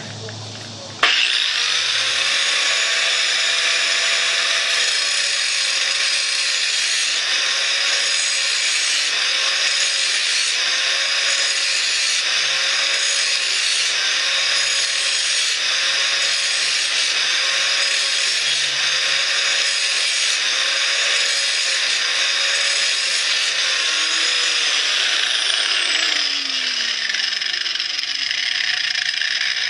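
A Porter-Cable 4.5-inch, 6-amp angle grinder switches on about a second in and runs steadily at full speed on its first trial. The motor and disc give a high, even whine with a faint regular waver.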